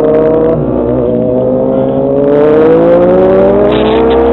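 Motorcycle engine running under way, its note dipping briefly about a second in and then climbing steadily as it gathers speed.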